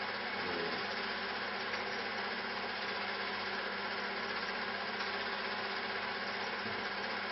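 Steady mechanical hum with a hiss over it, even in level with no separate events.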